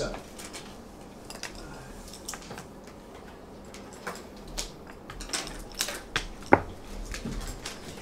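Marker pen drawing lines on a whiteboard: scattered short scratchy strokes and clicking taps, with one louder knock about six and a half seconds in.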